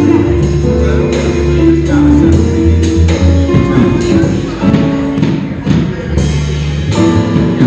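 Live trio music played on an upright double bass, a drum kit with cymbals and an electric keyboard, with the bass notes standing out low and steady.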